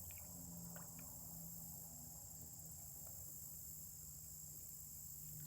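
Steady, high-pitched chorus of evening insects trilling without a break, with a faint low hum beneath it.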